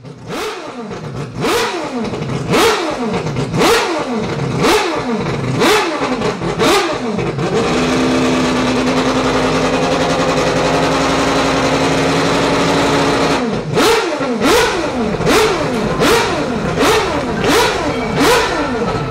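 Mazda 787B's R26B four-rotor rotary engine free-revving: sharp throttle blips about once a second, then held at steady raised revs for about five seconds, then blipped again, more quickly.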